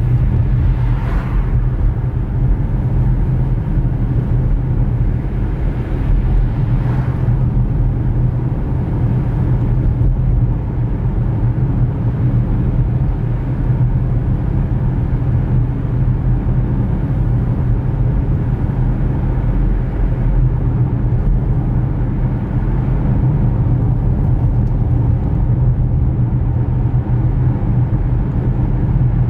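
A car's engine and tyre noise heard from inside the cabin through a dashcam microphone: a steady low hum while driving, with two short whooshes about a second in and about seven seconds in.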